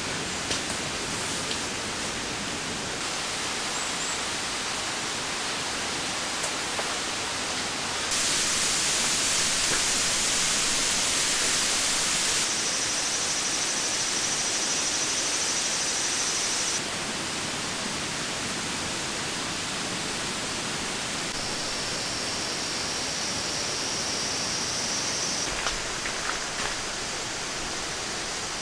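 Steady hiss of rain, getting louder and quieter in steps every few seconds, with a faint thin high tone in two stretches and a few light taps near the end.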